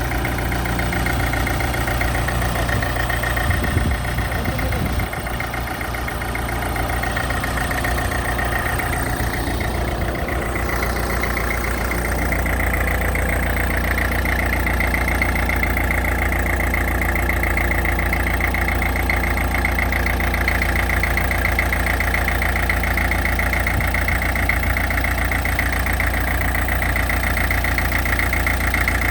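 Heavy equipment engine idling steadily; about twelve seconds in, its low note grows stronger and then holds steady.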